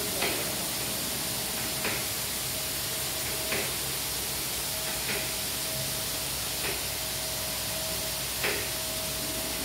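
Automatic car wash gantry spraying water over a car: a steady hiss of spray with a thin steady tone under it, and a light knock about every second and a half.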